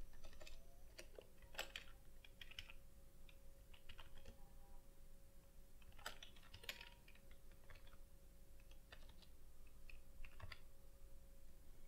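Faint computer keyboard typing: a few keystrokes at a time with pauses between, over a faint steady hum.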